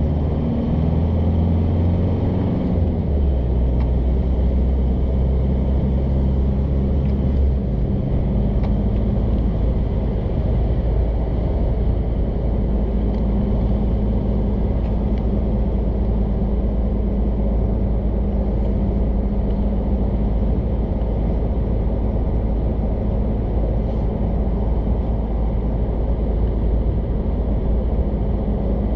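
Cabin road noise of a 2015 Isuzu D-Max dual-cab ute at highway speed, with the 3.0-litre turbo-diesel running, tyre rumble, and air noise from a roof-mounted Yakima Ruggedline rack and platform. The engine note shifts over the first several seconds, then settles into a steady drone.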